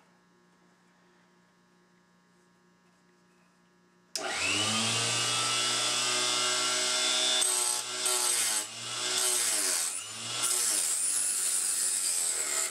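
Small electric mini chop saw switched on about four seconds in, whining up to speed and then running steadily. Its pitch sags and recovers three times as the blade bogs down cutting through a brass cartridge case.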